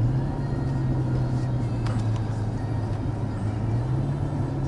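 Car driving along, heard from inside the cabin: a steady low engine and road-noise drone, with a couple of faint ticks about two seconds in.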